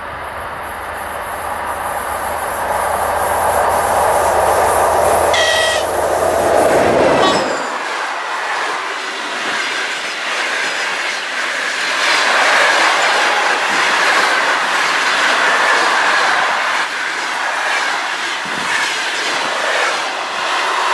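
TEP70BS diesel passenger locomotive passing at speed, its diesel engine rumbling until it goes by about seven seconds in, with a brief shrill tone a little over five seconds in. Then the passenger coaches rush past, their wheels clattering over the rail joints.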